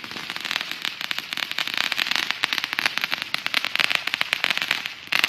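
Fireworks crackling: a dense, rapid run of small pops that goes on without a break, easing briefly near the end.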